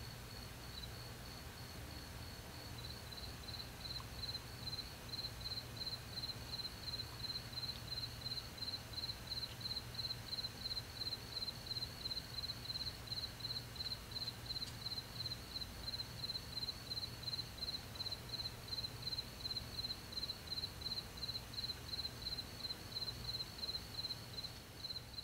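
Cricket chirping in an even rhythm, about two to three high chirps a second, growing louder over the first few seconds, over a steady low hum.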